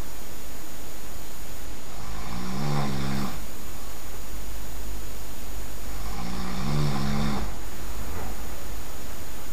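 A sleeping person snoring loudly: two long snores about four seconds apart, each lasting about a second and a half, over a steady background hiss.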